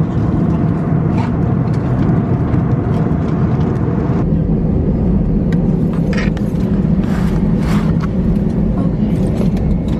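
Steady engine and air drone inside an airliner's passenger cabin, even and unbroken, with a few faint clicks or rustles over it.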